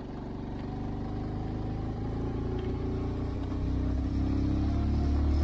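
Motorcycle engine running under way, heard from the rider's seat, growing gradually louder over a few seconds and then cutting off suddenly.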